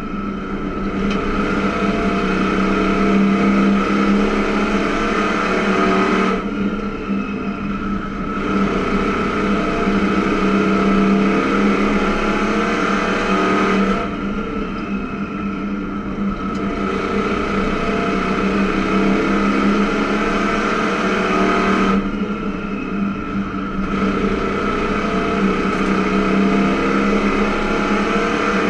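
Race car's engine heard from inside the cockpit, running hard down the straights. About every seven to eight seconds it briefly drops and thins as the driver lifts for a turn, then picks up again.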